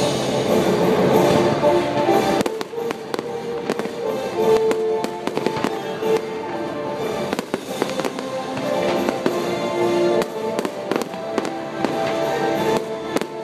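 Fireworks display with a dense, loud rush of launches and bursts for the first two seconds or so, then a long run of sharp pops and crackles. Show music plays underneath throughout.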